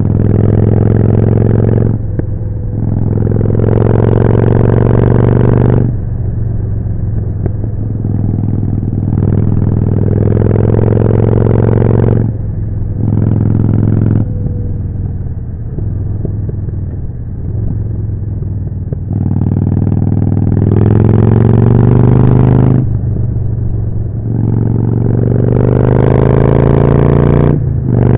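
Harley-Davidson Forty-Eight's air-cooled 1200 cc V-twin running through a Jekill & Hyde exhaust, opened up hard about five or six times with its pitch rising through each pull, and dropping back quieter in between as the throttle is rolled off.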